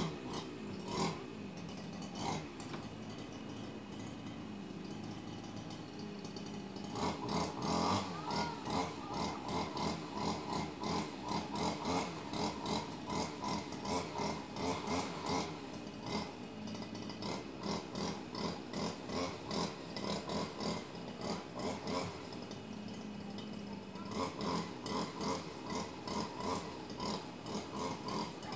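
Rhythmic scraping strokes, about two a second, starting about seven seconds in over a steady background.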